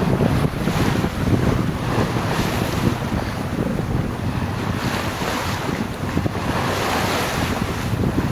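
Wind buffeting the microphone over the rush of sea water around a Grand Soleil 37 sailing yacht under sail, a steady, gusting noise with a strong low rumble.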